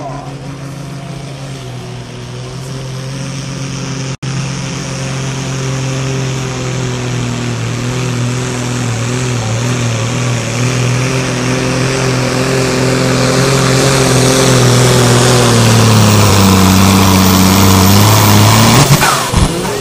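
Super Sport class diesel pulling tractor running at full throttle down the track with the sled, growing louder as the run goes on. Its engine note falls slowly as it pulls down under the sled's load, drops further about sixteen seconds in, and falls away sharply near the end.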